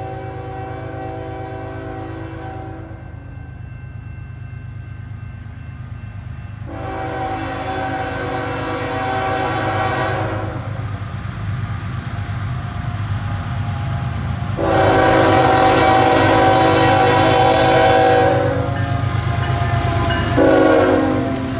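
Approaching CN freight train's diesel locomotive horn sounding three long blasts, then shorter ones near the end as the lead locomotive passes close by. A steady low rumble of the locomotives grows louder throughout.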